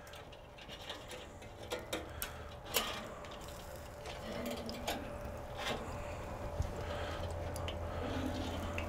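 Scattered faint clicks and light metallic ticks as meat-thermometer probes and their wires are worked out of a roast and off a charcoal kettle grill's grate. A low steady hum comes up under them about four seconds in.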